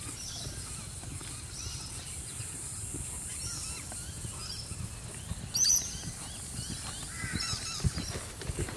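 Several birds calling and chirping, with short scattered calls and one louder call about five and a half seconds in, over a steady low rumble. Near the end, a few dull thuds of a horse's hooves trotting on sand.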